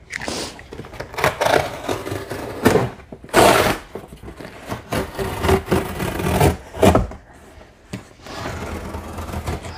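Box cutter slicing through the corrugated cardboard wall of a large pallet box, with the cardboard scraping and flexing in irregular bursts. The loudest burst comes about three and a half seconds in, and a sharp knock about seven seconds in.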